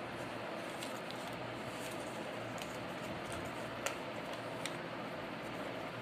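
A few faint, crisp crackles of a paper origami bird being handled and creased by hand, the sharpest about four seconds in, over a steady background hiss.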